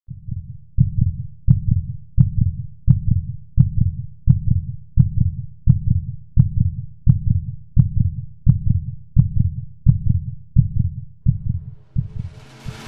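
Heartbeat-like sound effect: a deep thump repeating evenly about every 0.7 seconds, growing slightly weaker near the end. A drum-led music track comes in right at the end.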